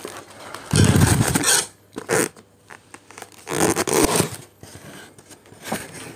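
Styrofoam takeaway boxes being moved and handled on a tabletop: several rough scraping, rubbing sounds of foam against foam and against the table, the loudest about a second in.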